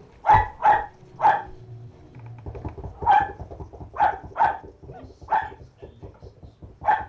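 Puppies barking: about eight short, high yaps, three in quick succession in the first second and a half, then single yaps spaced a second or so apart.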